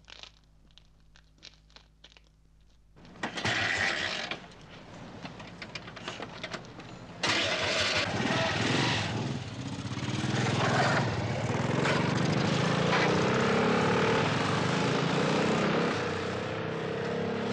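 Two motorcycle engines start about three seconds in. From about seven seconds they run louder and rev with a rising pitch as the bikes pull away.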